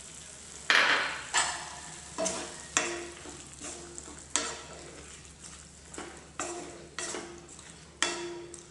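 Wooden spatula stirring green chillies and yogurt in a kadhai: repeated scraping strokes against the pan, about one and a half a second, some with a short ring. Under them is a low sizzle of frying.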